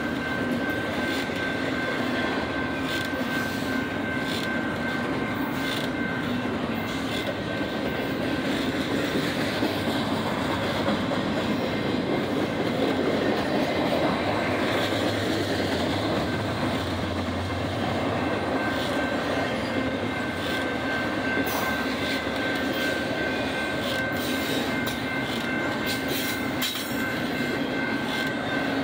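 Doublestack intermodal well cars rolling steadily past at a grade crossing: a continuous rumble of steel wheels on rail with irregular clacks over the joints, and a steady thin high tone running over it.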